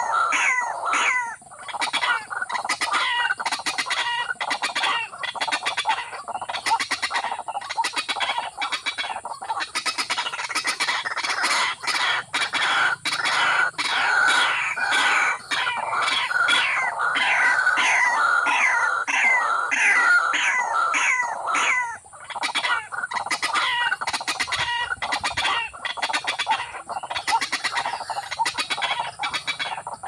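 Rail-type waterbird calling: loud clucking calls repeated several times a second, with brief breaks about a second and a half in and again about 22 seconds in.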